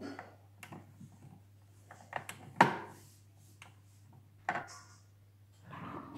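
Wind-up gramophone being wound by its hand crank: irregular clicks and wooden knocks from the crank and cabinet, the loudest a sharp knock about two and a half seconds in, over a faint low hum.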